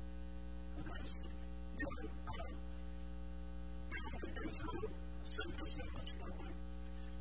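Steady electrical mains hum from the sound system, with a few short, soft sounds scattered over it.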